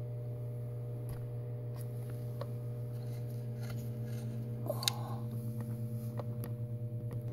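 Steady electrical hum from the radio and amplifier bench gear, with a few faint clicks. About five seconds in there is a short clunk as the plug-in element of a Bird 43 wattmeter is turned around in its socket to read reflected power.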